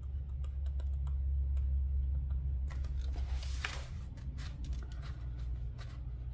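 Pen writing on a sheet of planner stickers: a scattered run of small ticks and scratches, with a brief rustle about halfway through as the sticker sheet is shifted. A low steady hum runs underneath.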